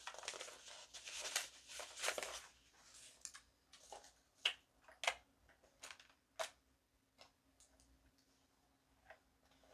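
Sheets of paper rustling and being handled for about two and a half seconds, then scattered sharp taps and clicks.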